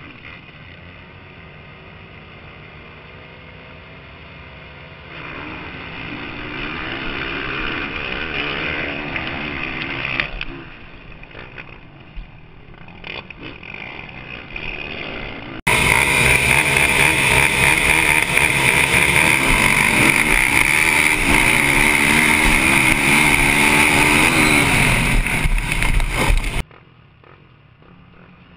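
Race quad engines, 450 cc single-cylinder four-strokes, heard from onboard: running steadily at first, revving louder for a few seconds, then a sudden switch to a much louder stretch of hard-revving engine noise that cuts off abruptly near the end.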